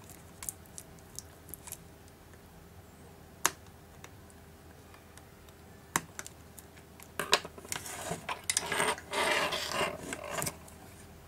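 Small sharp clicks as flex-cable connectors are pressed home on an opened Samsung GT-P5200 tablet, two of them louder. Then a few seconds of scraping and rustling as the tablet is handled on the workbench.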